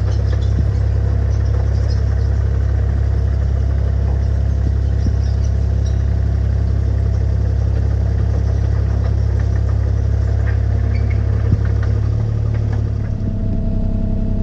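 Bobcat skid steer's diesel engine running steadily, with a shift in its engine note about thirteen seconds in.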